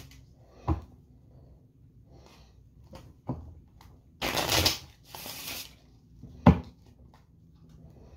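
A deck of playing cards being riffle-shuffled on a table, with two quick rapid flutters of riffling about four seconds in. Three sharp knocks are scattered through it, the loudest near the end.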